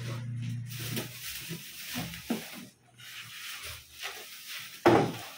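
Crinkling and rustling of the plastic wrap around a boxed built-in gas hob, with cardboard and foam packing rubbing as the hob is lifted in its box. One sharp thump near the end.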